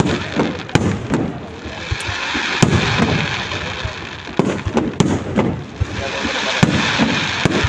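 Aerial fireworks going off in quick succession, sharp bangs and booms with rolling echoes, over a crowd's background murmur.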